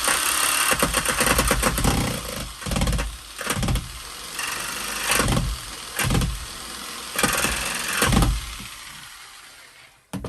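Jigsaw run in a string of short bursts, the trigger squeezed and released so the motor speeds up and winds down again each time, ending with a last run-down about eight seconds in. The longer blade's stroke is too long to cut past the lip without striking the filler behind it.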